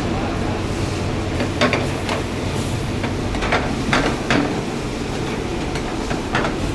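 A cooking utensil clinking and scraping against a pan, with about seven short knocks spread unevenly, over a steady low rumble.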